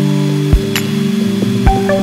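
Instrumental background music: sustained notes that change every second or so, with a few soft percussive hits.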